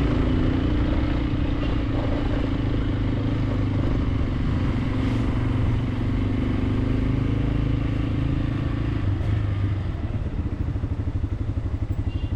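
Motorcycle engine running steadily while riding, settling into slow, even pulses near the end as the bike slows down.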